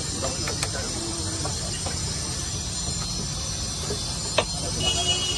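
Steady high hiss and sizzle from the stall's gas burner and wok of frying oil, over a low street rumble, with a sharp utensil click about four seconds in.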